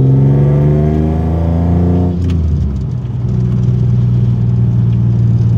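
A Toyota 3.4-litre 5VZ V6 with TRD headers and a Magnaflow-resonator exhaust, heard from inside the cab with the windows up, pulling with a slowly rising note for about two seconds. The revs then drop off sharply as the throttle is lifted, and the engine settles into a steady lower drone.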